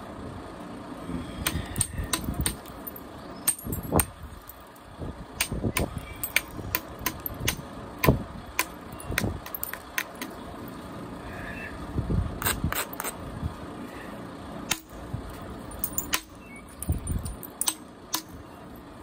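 Copper-tipped billet striking the edge of a thin flint biface, percussion-flaking it thinner. Sharp clicking strikes come in irregular runs of a few a second, some with a duller knock.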